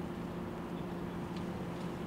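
Steady low hum over a background noise haze, with a couple of faint ticks near the end. There is no bat-on-ball contact.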